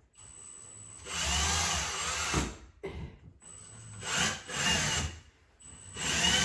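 A power drill drives screws through a kitchen cabinet into a wall stud in three runs. Each run starts with a thin whine and builds to full speed under load.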